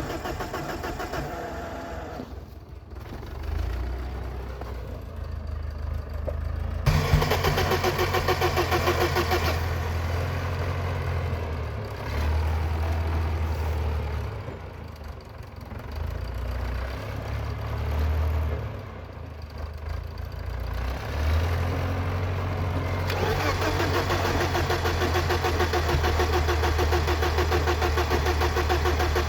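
BMW E34 engine being cranked on the starter motor, turning over without catching. The cranking comes in bouts, getting louder about seven seconds in and again with a long run in the last quarter.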